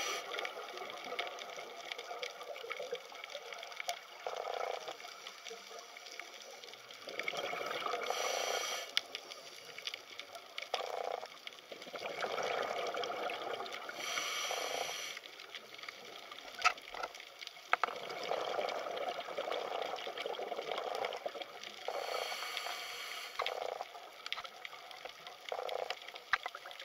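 Underwater water noise picked up by the camera: an uneven gurgling, bubbling wash, swelling into louder bursts every few seconds, with a sharp click about two-thirds of the way through.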